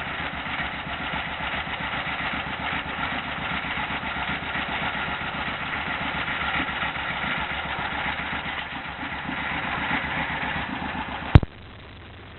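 An engine running steadily at idle, which cuts off abruptly with a sharp click near the end.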